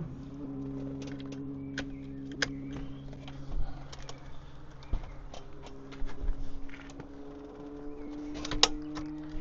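Light clicks and taps of parts being handled and fitted onto a van's handbrake lever, with a sharper click near the end, over a steady low hum of held tones that shift pitch a couple of times.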